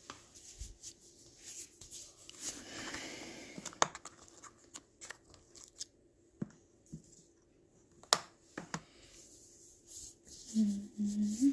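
Quiet, scattered handling noises of small objects on a table: light clicks and taps with rustling, and a longer rustle about three seconds in.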